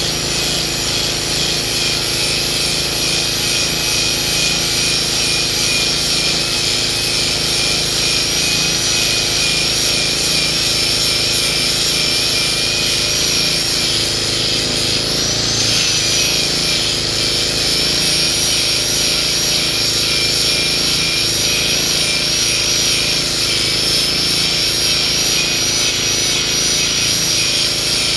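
Hitachi hydraulic excavator running steadily under load while chopping oil palm trunks, with a high steady whine over the engine hum that briefly rises in pitch midway.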